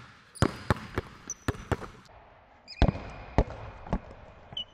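Basketball dribbled hard on a hardwood gym floor in quick in-between-the-legs and crossover bounces, about ten in all, with a pause of nearly a second midway. A few short high squeals come in between the bounces.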